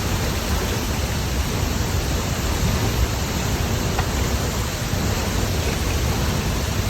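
La Fortuna waterfall pouring into its plunge pool: a steady, unbroken rush of falling water.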